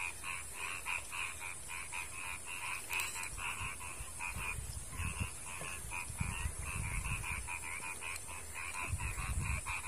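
A frog calling in a fast, even series of croaks, about five a second, over a steady high insect buzz. Low rumbles come in the second half.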